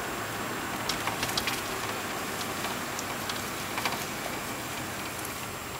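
Inside the cabin of a 1962 Ford Fairlane with a 200 cubic-inch straight-six engine, driving along: a steady run of engine and road noise. A cluster of sharp clicks comes about a second in, and another just before four seconds.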